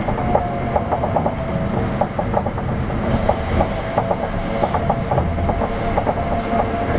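200-series New Tram, a rubber-tyred automated guideway train, running, heard from inside the car: a steady low rumble with a steady whine and many irregular sharp clicks.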